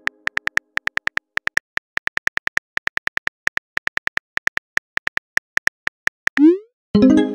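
Phone keyboard key clicks, about six a second, as a text message is typed, then a short rising swoosh of the message being sent near the end, followed by a brief pitched chime.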